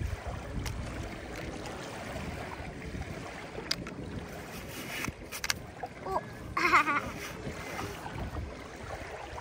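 Wind buffeting the microphone, a steady low rumble, with a few faint scrapes and taps of a plastic sand spade digging in sand. About two-thirds of the way through, a brief high warbling sound.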